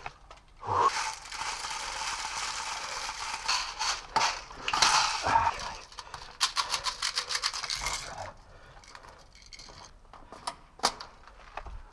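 Reloading an airsoft gun: BBs and magazine rattling, scraping and clicking, with a fast even run of clicks lasting a second or two about two-thirds of the way through.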